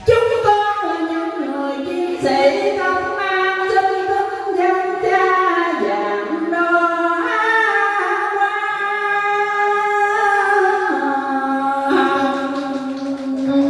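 A solo voice singing slow, long-held notes that step up and down in pitch, with little or no instrumental accompaniment.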